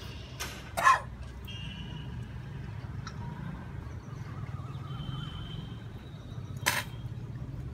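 A man forcefully snorting and hawking while drawing a sutra neti cleansing thread through his nose and mouth, clearing loosened mucus. There are two sharp blasts of breath about a second in and two more near the end, the first pair the loudest.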